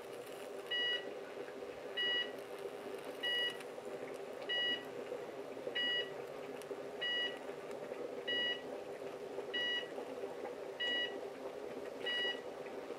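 High-voltage arc inside an overvolted cooker switch and socket, fed by two microwave oven transformers in series: a steady mains-hum buzz. Over it, a short two-tone electronic beep repeats about every 1.3 seconds.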